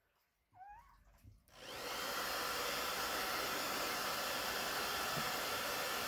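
Hair dryer switched on about a second and a half in, rising within half a second to a steady rush of blowing air.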